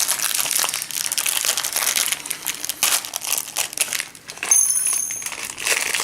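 Plastic parts bag from an RC car kit crinkling and rustling as it is handled and opened, with irregular small clicks. About four and a half seconds in, a faint high steady tone sounds for under a second.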